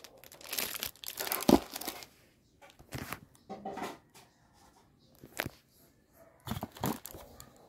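Plastic and cardboard packaging crinkling and rustling as it is handled, in irregular bursts, the longest in the first two seconds and shorter ones later.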